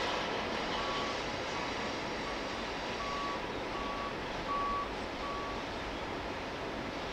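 Norfolk Southern freight train's cars rolling past with a steady rumble of wheels on rail. Over it a backup alarm beeps in an even series about every 0.7 s, starting about a second in and stopping a little past the middle.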